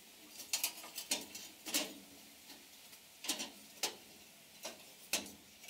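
Pruning shears snipping tomato twine and stems: about six sharp clicks, irregularly spaced.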